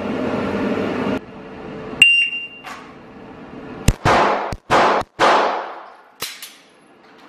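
Electronic shot timer giving its sharp start beep about two seconds in, then a quick string of handgun shots about two seconds later, echoing in an indoor range.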